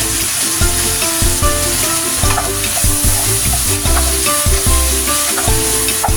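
Chicken wings frying in a pan with soy sauce just added, sizzling steadily. A background melody of short, stepping notes plays under the sizzle.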